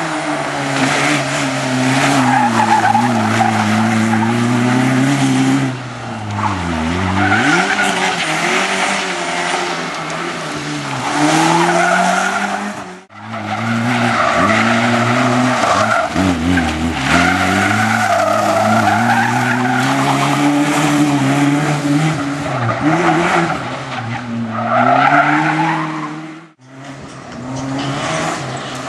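Opel Corsa rally car's engine revving hard, its pitch climbing through the gears and dropping sharply as it slows, with tyres sliding and squealing. The sound breaks off abruptly twice as it cuts between shots.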